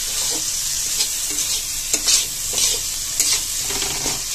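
Spice masala with tomatoes sizzling in hot oil in a steel kadhai, stirred with a metal spatula that scrapes the pan every second or so.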